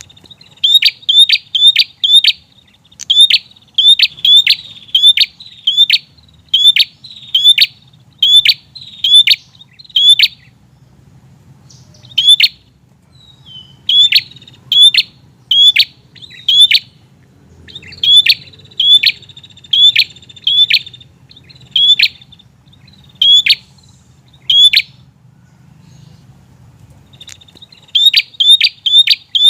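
Prinia (prenjak) calling in full voice: loud, sharp, high chirps repeated about three a second in long runs, broken by a couple of short pauses.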